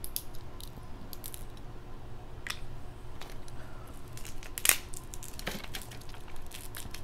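Crab-leg shells cracking and snapping as they are broken open and picked apart, in scattered clicks and crackles. The sharpest crack comes a little under five seconds in.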